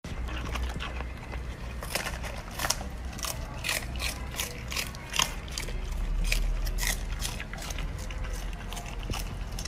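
A puppy biting and chewing crisp napa cabbage leaves: irregular crunches and crackles of tearing leaves, several a second.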